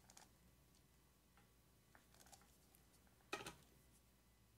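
Near silence with faint clicks of small parts being handled as a diffuser base is put back together, and one louder short scraping click about three and a half seconds in.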